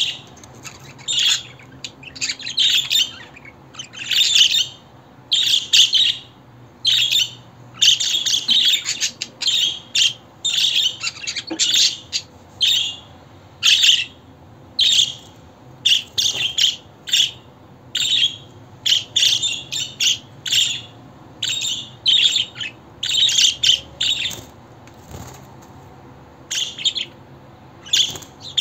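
Budgerigar chirping and chattering in many short bursts with brief pauses between them.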